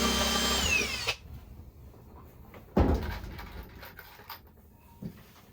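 Oscillating multi-tool running for about a second, then winding down with a falling whine. A second short burst comes nearly three seconds in.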